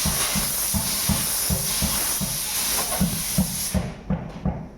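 Compressed air hissing steadily from an air line during tire work, cutting off sharply near the end. Under it a low regular thumping, about three beats a second, keeps going.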